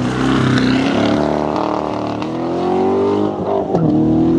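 Chevrolet Corvette V8 accelerating hard on an autocross course. The engine note climbs through most of the stretch, dips briefly near the end, then picks up again.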